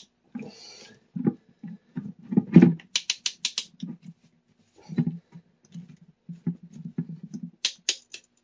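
Pliers tightening a fitting on a water meter's PEX connection: scattered metal clicks, knocks and scraping as the jaws grip and turn. There is a quick run of sharper clicks about three seconds in and another near the end.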